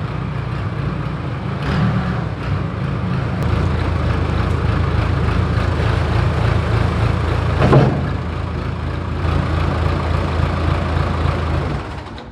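Diesel engine of a piece of heavy equipment running steadily, with one brief louder burst about three quarters of the way through. The sound falls away sharply just before the end.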